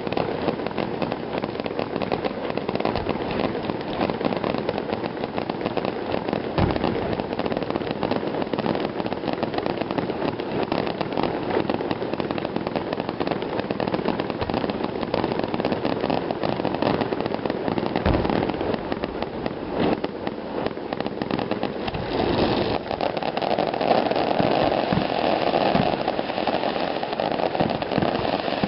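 Fireworks finale: dense, continuous crackling and popping from many shells bursting at once, with two heavier booms standing out, about seven and eighteen seconds in.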